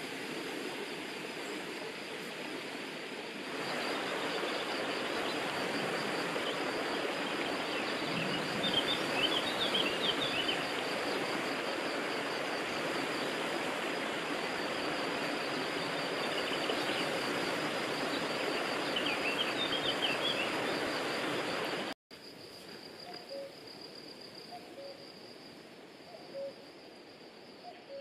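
Shallow stream running over stones, a steady rush of water, with small birds chirping in two short bursts over it and a steady high trill underneath. About three-quarters of the way through, the water cuts out to a quieter background with faint bird notes.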